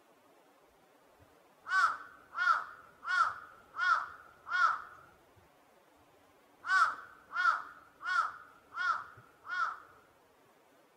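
A crow cawing: five caws about two-thirds of a second apart, then after a pause of about two seconds, five more.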